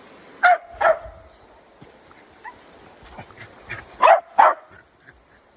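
A dog barking: two pairs of sharp barks, the second pair about three and a half seconds after the first, with a few faint short sounds between.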